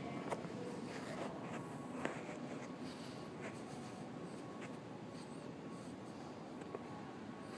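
Metro train noise fading away down the tunnel after it leaves the station, under a faint steady hum and a few light clicks.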